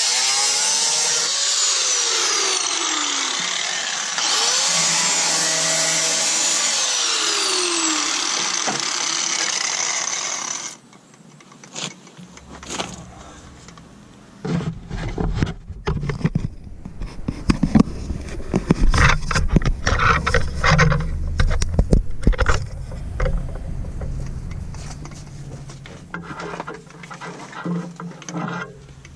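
Angle grinder with a cut-off wheel cutting through a rusted steel truck rocker panel, its motor pitch sliding down and back up as the wheel bites, stopping abruptly about ten seconds in. Then irregular knocks, clatter and low bumps of handling close to the microphone.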